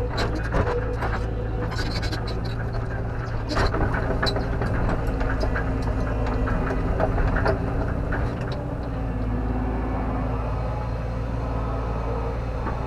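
JCB JS130 tracked excavator heard from inside the cab, its diesel engine running steadily as the machine is worked. Clanks and knocks come in the first four seconds, and a whine that rises and falls comes in near the end.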